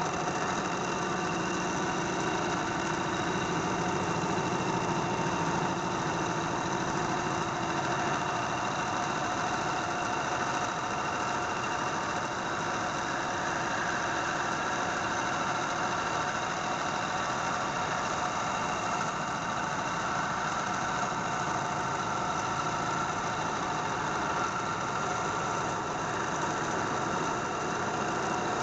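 Metal lathe running at a steady pitch while a welding arc burns inside the bearing bore of a truck wheel hub turning in the chuck. This is build-up welding of the worn bearing housing, to be machined back to size afterwards.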